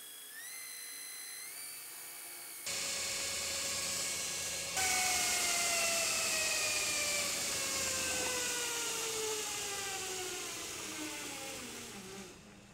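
2x72 belt grinder with a 14-inch contact wheel running its belt on a test spin: a motor whine that steps up in pitch, then grows louder in two sudden jumps, then falls steadily in pitch as the grinder winds down and coasts to a stop. The wheel runs with little vibration and the belt tracks true.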